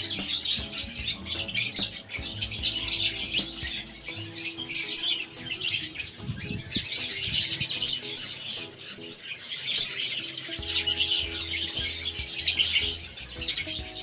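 A flock of small pet birds chattering and chirping continuously, with background music underneath.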